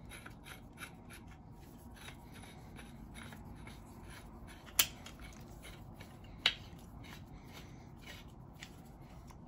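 Handle being screwed by hand into the ratcheting head of a manual pipe threader: faint ticking and rubbing of the threads and handling, a few small ticks a second, with two sharper metal clicks about halfway through and a second and a half later.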